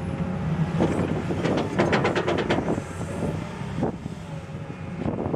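Komatsu excavator's diesel engine running under load as the bucket lifts a load of soil out of the ditch and swings away, with a run of clattering knocks from about one to four seconds in.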